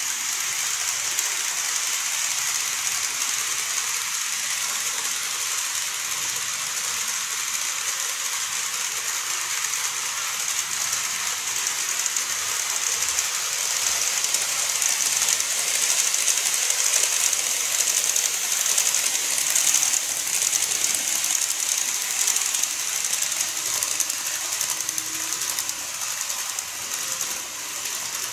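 Model trains, a 485 series and a 681 series, running on model railway track: a steady high rattling hiss of small wheels on the rails and the motors' whir, a little louder in the middle as a train comes nearer.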